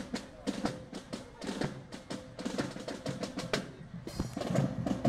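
Marching band drum cadence: quick snare drum taps and rolls over bass drum beats.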